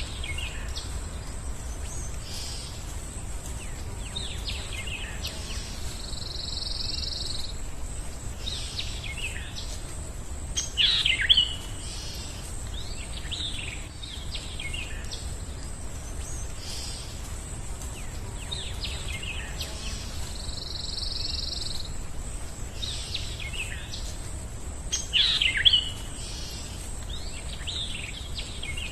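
Birds chirping and calling in short, sweeping phrases over a steady low background rumble, with louder bursts of calls twice. The same run of calls repeats about every 14 seconds.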